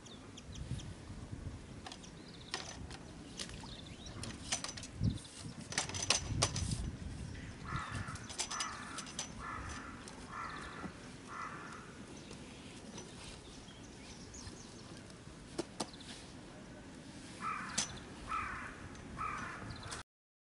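A crow cawing in two runs: five caws in a row about 8 seconds in, then three more near the end. Scattered clicks and knocks from the metal fishing platform being set up on the bank, loudest about 5 to 7 seconds in.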